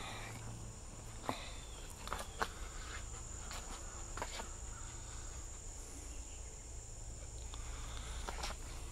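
Faint play sounds of an adult German Shepherd and a puppy on concrete: a few scattered light clicks and taps from their paws and claws, over a steady thin high-pitched tone in the background.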